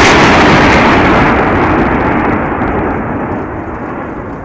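Multiple rocket launcher salvo: a continuous roar of rockets launching and flying off, loud at first, its hiss dropping away after about a second, then fading steadily.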